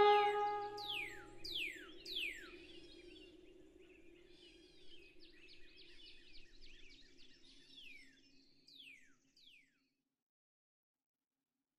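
The last chord of a song dies away in the first second or two, then birdsong: a few quick downward-sweeping whistles, soft twittering, and two more falling whistles, all fading out before the end.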